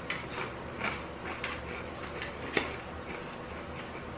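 Pringles potato crisps being chewed: a few faint crunches over a low room hum, the sharpest about two and a half seconds in.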